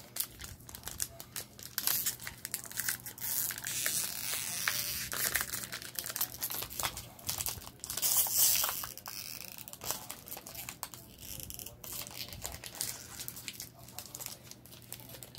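A foil trading-card booster pack being torn open and its wrapper crinkled by hand: a dense run of crackling rustles and sharp crinkles, loudest about eight seconds in.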